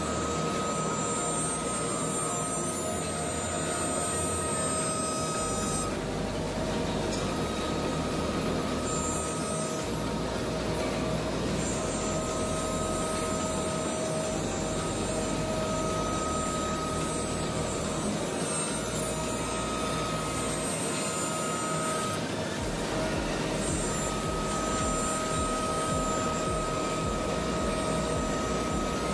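SEMAC SM-1325YM CNC nesting router cutting a sheet panel: a steady spindle whine over the noise of the bit routing and the machine running. The high whine breaks off briefly a few times as the cut goes on.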